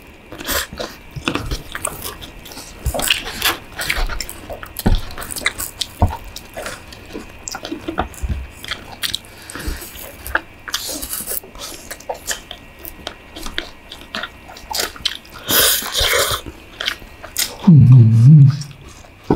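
Close-up eating sounds of stir-fried instant noodles with chicken: wet chewing and crunching clicks, with a couple of longer noisy slurps. A short low hum of a voice comes near the end.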